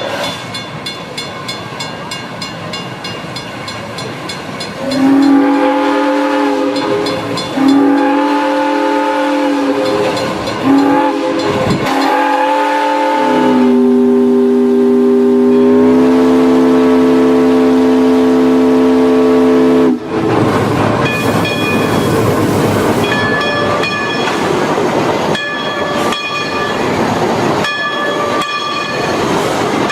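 Steam locomotive chime whistle: a series of shorter blasts, then one long blast that steps up in pitch partway and cuts off suddenly. Before the whistle there is a rapid even beat from the running train; after it, rattling and clanking with intermittent high squeals.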